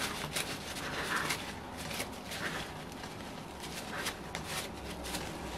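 Paper towel rustling and rubbing as nitrile-gloved hands wipe oil off a model engine, in soft, irregular strokes.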